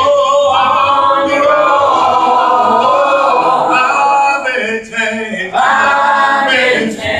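A man's voice singing a gospel invitation hymn a cappella into a microphone, in long held notes, with a brief break about five seconds in before the singing picks up again.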